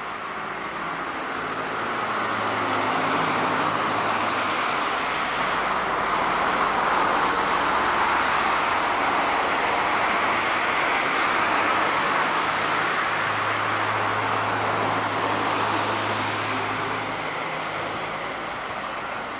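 Road traffic passing: tyre and engine noise of cars swells over the first couple of seconds, holds, and fades away near the end, with a low engine hum at times.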